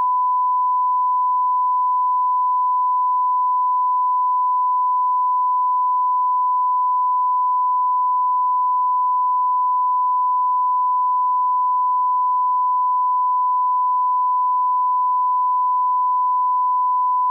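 Steady 1 kHz reference tone, the line-up test tone that runs with broadcast colour bars for setting audio levels. It is a single unbroken pure tone at a constant level.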